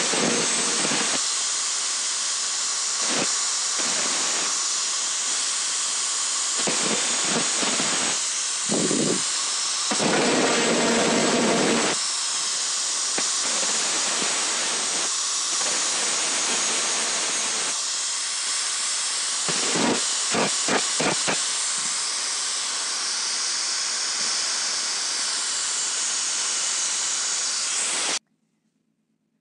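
Angle grinder running, its abrasive disc grinding a steel drill chuck key with a steady hiss that dips and swells as the disc is pressed on and eased off. It cuts off suddenly near the end.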